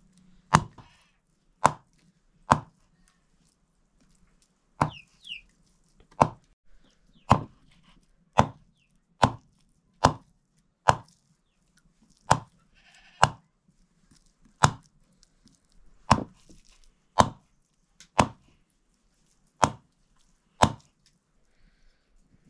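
Chopping with a heavy blade: about eighteen sharp strokes, roughly one a second, with a short pause after the first three.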